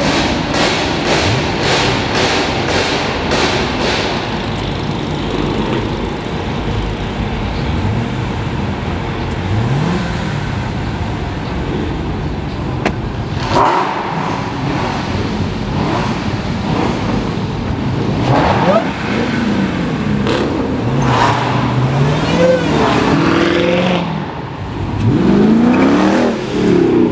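Several Dodge muscle cars and SUVs rolling past one after another, their loud exhausts revving up and down over a steady engine rumble. A quick run of short rev blips comes in the first few seconds, and the revving grows busier in the second half.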